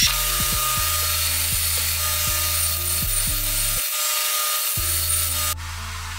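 Belt grinder running, a steady abrasive hiss from the belt that cuts off sharply near the end, over background music with a stepping bass line.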